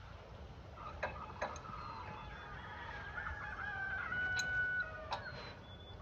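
Rooster crowing: one long drawn-out crow that ends on a held note. A few sharp metallic clicks come before it and one near its end.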